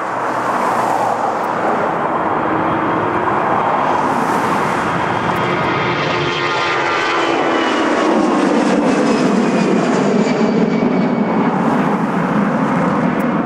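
Boeing 757-300 twin jet engines running at high power as the airliner rolls down the runway on its departure, a loud steady jet roar. A whine in it falls in pitch as the aircraft passes.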